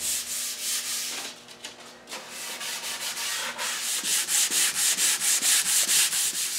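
Sandpaper rubbed by hand over a solid mahogany table top in quick back-and-forth strokes, about four a second, pausing briefly about a second and a half in before resuming. The 220-grit paper is clogging with old finish residue left in the wood.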